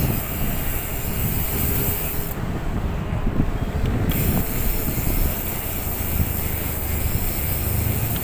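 Steady rumbling road and wind noise from riding along a street, picked up by a chest-mounted phone.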